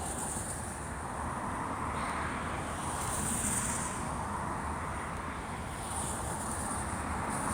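Steady hiss of rain mixed with traffic on a wet street, swelling slowly as vehicles pass.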